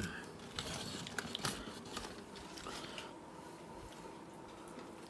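A person chewing food close to the microphone, with soft irregular mouth noises and faint clicks over the first three seconds, then quieter.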